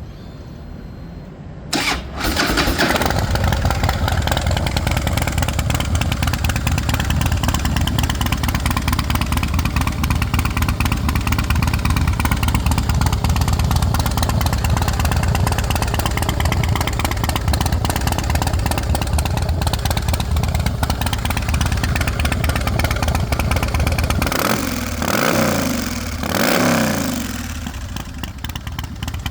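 A 2007 Harley-Davidson Night Train's 1584 cc V-twin starts about two seconds in, catching at once, and settles into a steady idle. Near the end the throttle is blipped twice, the pitch rising and falling each time, before it drops back to idle.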